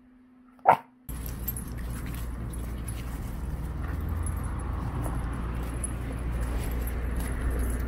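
A small dog gives one sharp bark about a second in. A steady low outdoor rumble follows.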